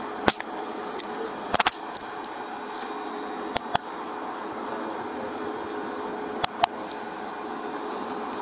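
Clothing rubbing against a police body camera's microphone pressed close to a person, over a steady background noise, with several sharp clicks scattered through.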